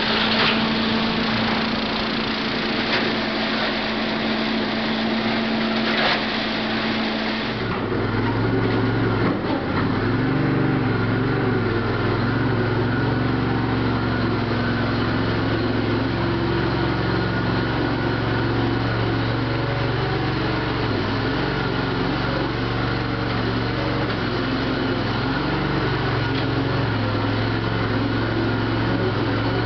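Farm machinery engine running steadily. About eight seconds in, the sound changes abruptly to a lower, deeper engine note that keeps running, wavering slightly.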